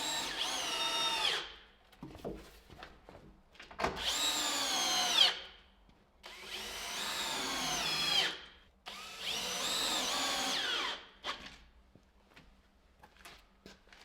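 Power drill running in four bursts of about one and a half to two seconds each, the motor whine dropping in pitch as each burst winds down, with light knocks between them.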